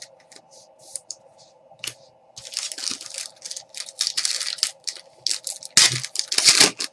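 Trading cards and a plastic penny sleeve rustling and scraping as they are handled close to the microphone: a run of short scratchy, crinkly sounds, thickest in the middle, with the loudest scrapes near the end.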